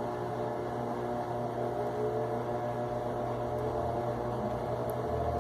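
Electrolux top-loading washing machine in its spin cycle, the motor and drum running with a steady hum and whining tones as it works up to high spin speed.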